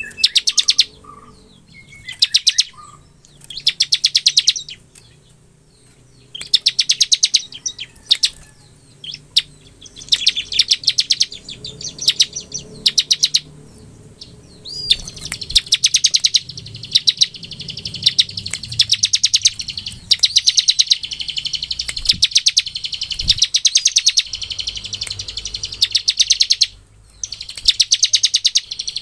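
Bar-winged prinia (ciblek) singing its fast rattling 'ngebren' song: bursts of very rapid high notes, each about a second long, spaced apart at first and coming almost back to back in the second half.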